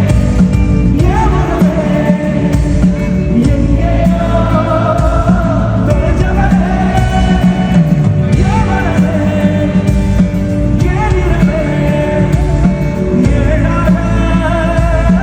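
Live concert music: a band playing loudly while a singer holds long, wavering notes that slide up and down in pitch.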